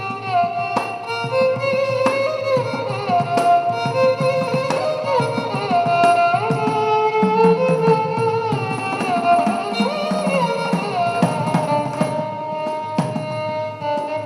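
Violin playing a film-song melody in Carnatic style, with gliding, ornamented notes, accompanied by hand-drum percussion striking steadily throughout.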